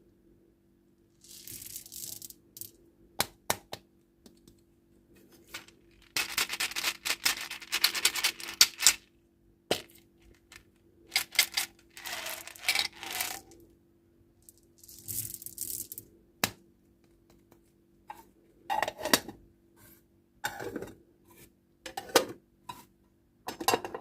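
Candy and toy packaging being opened by hand: plastic wrappers crinkle and tear in bursts of a second or two. Between them come sharp single clicks and small hard pieces clattering, more often near the end.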